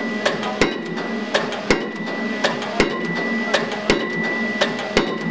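A pile-driving rig's hammer striking a precast concrete pile, about one heavy blow a second, five blows in all, with lighter clicks between blows and a steady high tone underneath.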